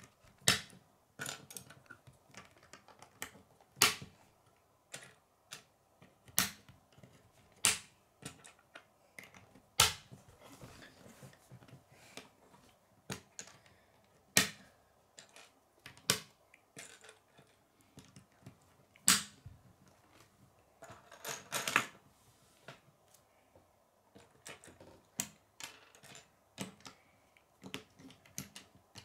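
K'nex plastic connectors and rods clicking and snapping together as a model is assembled, with knocks of parts set down on a wooden tabletop. The clicks are irregular, a few much louder snaps stand out, and there is a short rattle of pieces about two-thirds of the way in.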